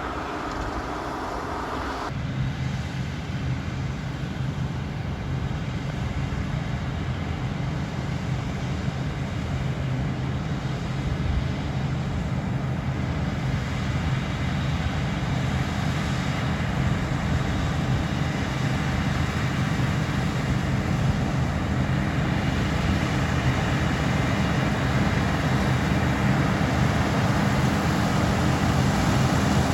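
Claas Dominator 98SL Maxi combine harvester running steadily at work, a low engine drone. The sound changes abruptly about two seconds in, then slowly grows louder.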